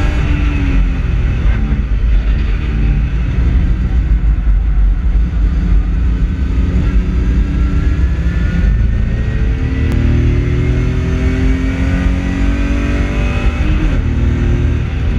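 BMW E30 race car's engine at full racing load, heard from inside the cabin over a heavy rumble of road and wind noise. The engine note climbs in long pulls through the gears and drops at a gear change near the end.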